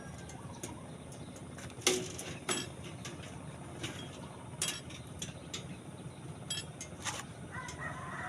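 Scattered sharp metallic clinks and knocks from hand work with steel, a second or more apart, over a steady low hum. A rooster starts crowing near the end.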